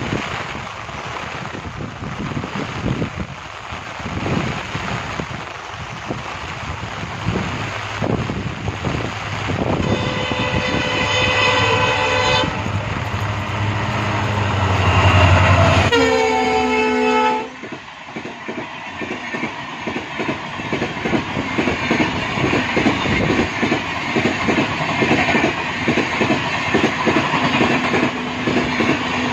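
Indian Railways EMD diesel locomotives (a WDP-4B and a WDP-4D back to back) approaching in heavy rain, their horns sounding twice, about ten and sixteen seconds in. The engines' low hum swells as they come past, then the coaches follow with a steady rhythmic clickety-clack over the rail joints.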